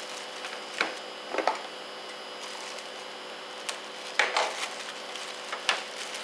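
Clear plastic bag crinkling in short bursts as hands work a car speaker out of it, several separate crackles a second or so apart.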